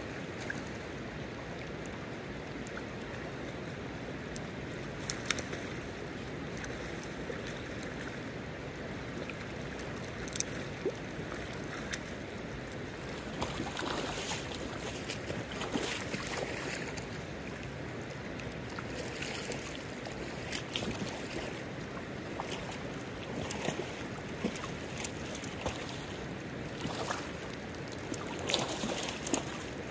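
Steady rush of a shallow river running over stones, with scattered splashes and knocks from wading through the water and from a hooked coho salmon being played and netted. The splashes are loudest and closest together near the end.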